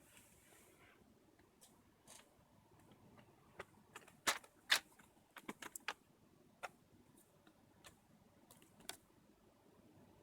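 A dozen or so scattered sharp clicks and taps of plastic and metal parts from working on an Acer Aspire E5-511 laptop during a hard drive swap. They bunch up in the middle, with the loudest clicks around four and a half seconds in.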